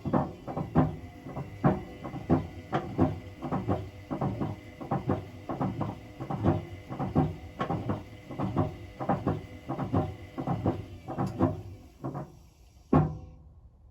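Hotpoint BHWMXL145 washing machine's drum knocking and banging irregularly, two or three knocks a second, over a faint steady motor whine as it turns at low speed; the drum wobbles on its snapped drum spider. The whine stops about twelve seconds in and one last loud knock follows.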